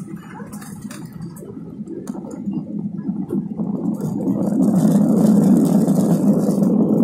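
Jet airliner engines and runway rumble heard from inside the cabin during the landing roll, a steady roar that swells markedly about four seconds in as the engines spool up, typical of reverse thrust after touchdown.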